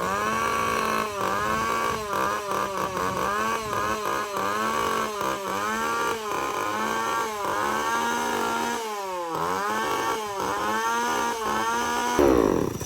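Echo CS-3450 chainsaw's small two-stroke engine revved again and again: the throttle is blipped up and then let fall back, a dozen or so times, while its freshly replaced carburetor is being fine-tuned. It revs and drops back cleanly, and near the end the engine is shut off and winds down.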